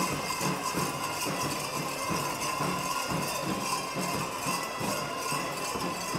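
Traditional folk dance music with a steady, even beat, with sharp rhythmic clacks for a stick dance.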